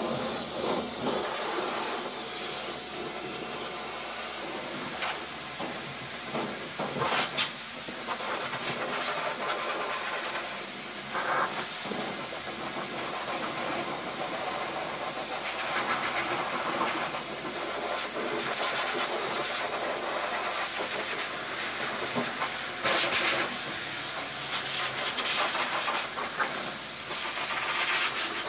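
Dog blow dryer at a self-service dog-wash tub, switching on suddenly and running with a steady hiss of air, blowing over a wet dog's coat; the sound swells briefly now and then as the nozzle moves.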